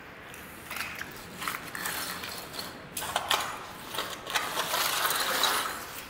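Quickie Bulldozer push broom's stiff bristles scraping over a dusty concrete floor in a series of pushing strokes, with scattered clicks and rattles from litter being shoved along. The strokes are loudest near the end.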